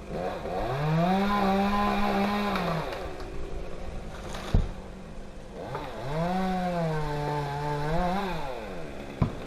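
Chainsaw revved up twice, each time rising to a high steady pitch for a couple of seconds and dropping back to idle. A sharp knock comes between the two revs.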